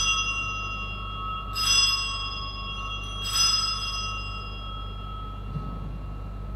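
Altar bell rung at the elevation of the consecrated host: three strokes about a second and a half apart, each leaving several clear ringing tones that fade away slowly.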